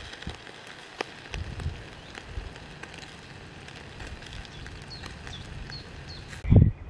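Wood fire crackling inside a steel camping fire box, with sharp irregular pops over a steady hiss. A few faint bird chirps come in near the end, and a loud low thump follows just before the end.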